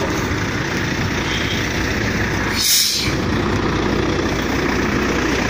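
Diesel truck engine idling, with a short, sharp hiss of released compressed air from a truck's air system about two and a half seconds in.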